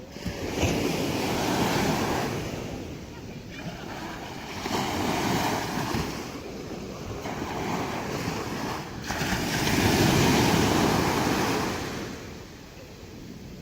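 Sea surf breaking on a sandy beach, the wash of the waves swelling and easing in several surges, loudest about ten seconds in and dropping off near the end.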